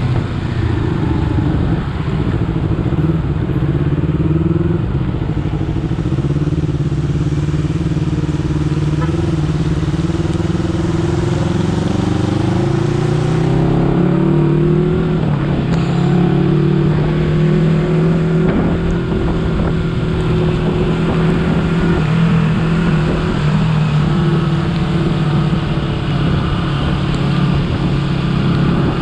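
Honda CBR250RR motorcycle engine and exhaust running under way, a steady note that climbs about halfway through and then holds at the higher pitch.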